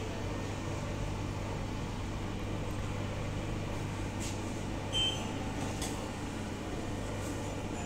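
Steady low machine hum, with a few light metallic clinks of stainless steel mixing bowls being handled; the loudest, briefly ringing clink comes about five seconds in.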